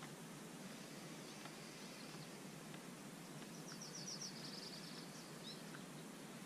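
Faint steady outdoor background noise. About three and a half seconds in, a small bird sings a quick run of high, evenly spaced notes, then gives one more short note a little later.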